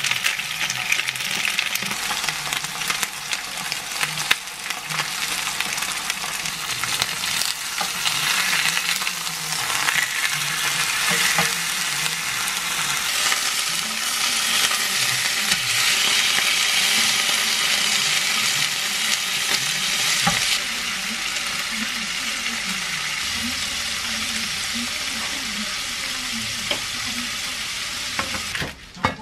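Beef, onion and zucchini sizzling steadily as they sear in a hot grill pan, with occasional sharp clicks over the hiss. The sizzle stops abruptly near the end.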